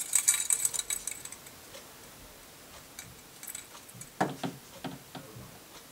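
Light metallic clicking and rattling as a Noctua tower heatsink is handled and set down onto the processor: a cluster of bright clicks in the first second, then a few softer knocks about four seconds in.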